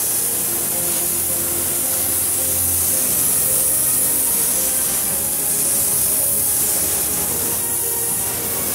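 Compressed-air gravity-feed spray gun hissing steadily as it atomises khaki paint onto a van roof, with background music underneath.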